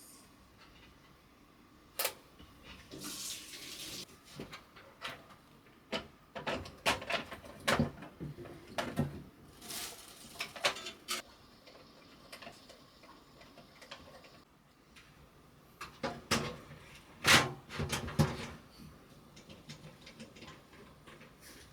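Hands handling computer parts during a PC build: scattered clicks and knocks of plastic and metal, with short bursts of rustling or sliding about 3 and 10 seconds in. The loudest knock comes about 17 seconds in.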